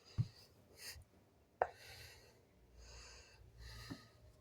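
Faint breathing and soft rustling, with two light taps, one near the start and one about a second and a half in.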